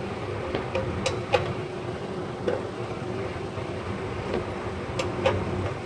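Hand wrench clicking against a bolt under the truck: a handful of sharp metallic clicks, two close pairs about one second and five seconds in, over a steady background hum.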